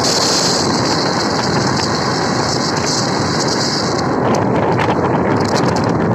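Wind rushing over the microphone of a phone held at an open window of a moving car, over steady road and traffic noise.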